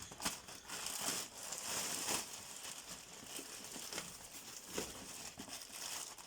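Parcel packaging crinkling and rustling in irregular bursts as it is handled and unwrapped.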